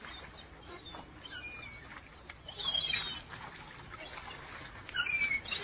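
Gulls calling: a string of short, high squawks and cries, loudest about three seconds in.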